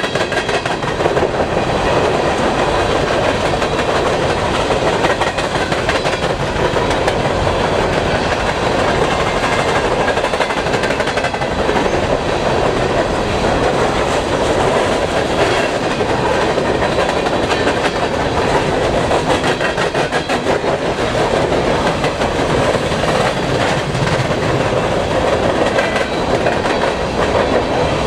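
Freight train of open-top hopper cars rolling steadily past close by: a constant rumble of wheels on rail with a continual clickety-clack of wheel clicks.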